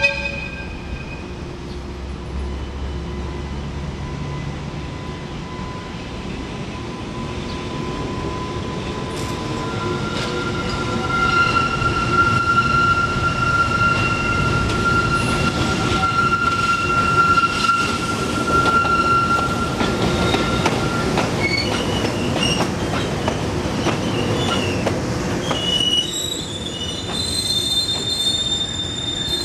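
JR Freight EH200 electric locomotive creeping through the depot's pointwork, its wheel flanges squealing on the tight curves in long, steady high-pitched tones. The sound gets louder about ten seconds in as it comes closest, with rumbling and clicks of wheels over the rail joints.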